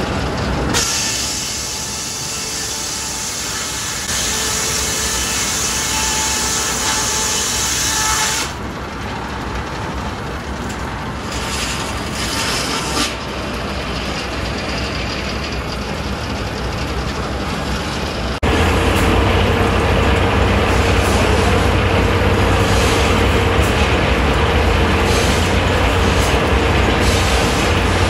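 Belt-driven circular sawmill running. For about the first eight seconds the big blade cuts through wood with a loud, high whine. Then the mill runs on more quietly, and about two-thirds of the way through it turns suddenly louder with a steady low hum.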